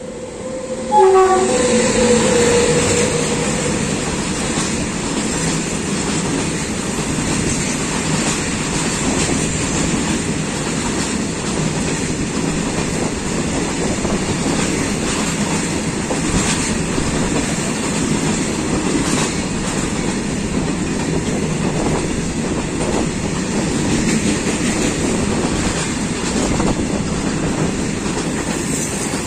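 An Indian Railways electric locomotive's horn sounds briefly about a second in. Then comes the steady rumble and clatter of a goods train of BOXN covered wagons passing close by, with wheels clicking over the rail joints.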